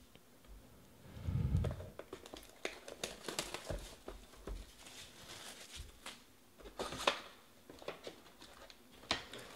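Cardboard trading-card boxes being handled: a dull thump about a second and a half in, then scattered scraping, tapping and crinkling as the lid of a Panini Prizm hobby box is lifted and the foil packs inside are handled.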